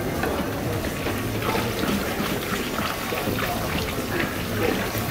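Liquid bubbling and sizzling in a large paella pan: many small crackles over a steady low hum.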